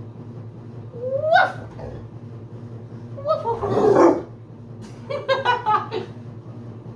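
Pit bull barking in three short bouts: a rising cry about a second in, the loudest bark near the middle, then a quick run of short barks.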